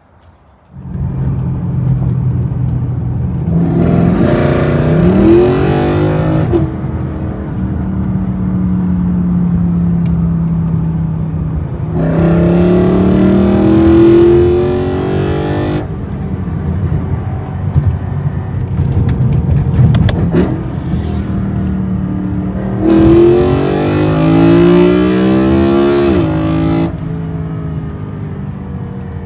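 BMW E92 M3's S65 V8, fitted with a carbon fiber cold air intake and carbon plenum, pulling hard three times while driven. Each time the engine and induction note rises in pitch, then cuts off sharply at the shift or lift, with steadier cruising between the pulls.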